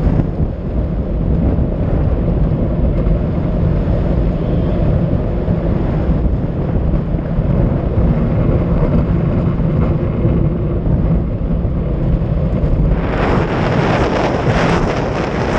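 Unpowered soapbox cart rolling fast downhill, heard from a camera mounted on the cart: a steady low rumble of the wheels on asphalt with wind buffeting the microphone. About thirteen seconds in, a louder, higher rush of wind noise joins.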